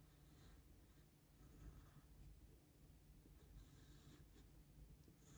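Faint pencil strokes scratching across thin card, in several short strokes with pauses between them.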